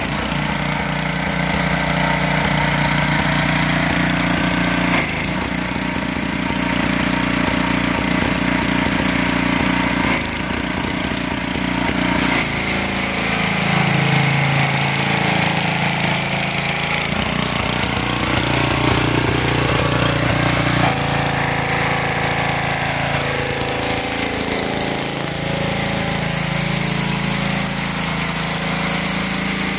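Gas-engine pressure washer running steadily while its wand sprays a high-pressure jet onto concrete, with a constant hiss of spray over the engine note. The engine's pitch dips and recovers twice.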